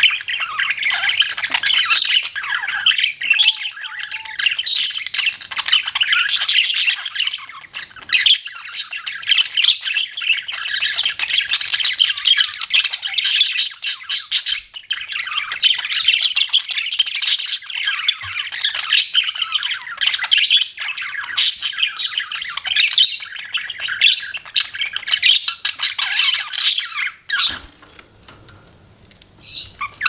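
Budgerigars chattering and warbling nonstop, a dense run of fast chirps and squawks that drops away briefly near the end and then starts again.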